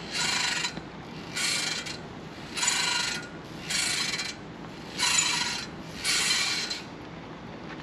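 Swing creaking at its hangers on the metal frame, six squeaks about one every 1.2 seconds, one with each pass of the swing.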